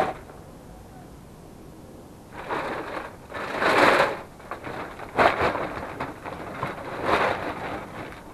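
Bags rustling and scrap electronics clattering as they are handled, in several noisy bursts, loudest about four seconds in, with a sharp knock right at the start.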